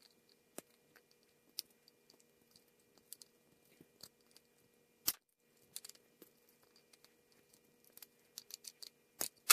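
Wire cutters biting and crunching into the plastic trigger handle of a Melnor hose spray nozzle: many small clicks and crackles, a loud sharp snap about five seconds in, and two more sharp snaps near the end.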